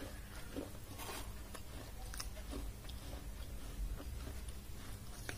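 Close-up chewing of dry baked clay: scattered sharp crunches and crackles, irregular and a second or so apart, over a low steady hum.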